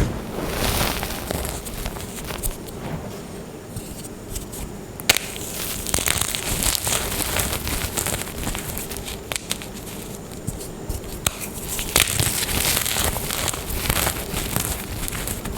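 Blocks of gym chalk being crushed and crumbled, a steady crackling and crunching with frequent sharp snaps.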